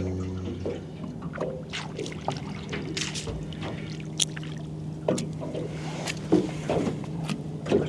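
A freshly caught squid being handled aboard a small fishing boat: water dribbles and splashes, with scattered small knocks. A steady low motor hum runs underneath.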